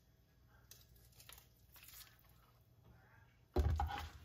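Mostly quiet, then about three and a half seconds in a raw beef steak is laid into hot melted butter in a nonstick frying pan, giving a sudden low thump and a burst of sizzling.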